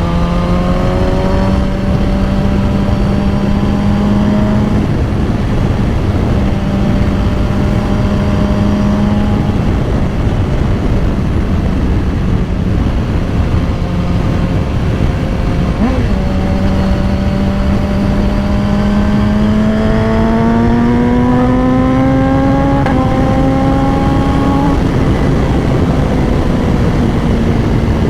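A 2010 BMW S1000RR's inline-four engine running at steady revs while riding, over heavy wind noise. Past the middle the revs climb for several seconds, then ease off near the end.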